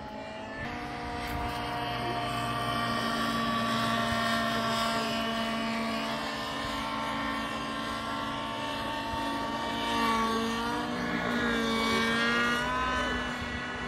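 Radio-controlled model helicopter running overhead: a steady, even motor-and-rotor tone. Near the end the pitch dips and rises several times as the helicopter manoeuvres.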